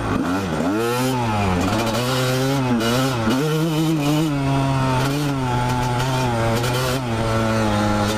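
Dirt bike engine running under way, its pitch repeatedly rising and falling as the throttle is opened and closed, with wind buffeting the microphone.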